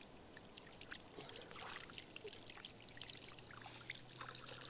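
Faint splashing and trickling of shallow water as a small hand net is dragged through seagrass and lifted out, water draining from the mesh in many small irregular drips.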